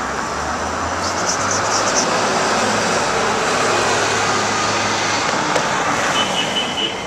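A motor vehicle passing close by on the street, a steady traffic noise with a low engine hum that swells and fades after about five seconds. A short, high pulsing tone sounds near the end.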